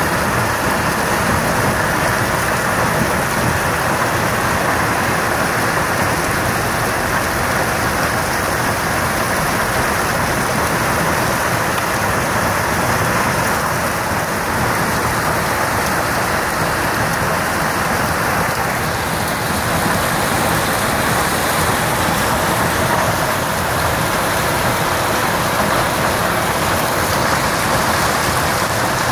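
Hailstorm: hailstones and heavy rain pelting down on the ground and vegetation, a dense, steady rush of countless small impacts.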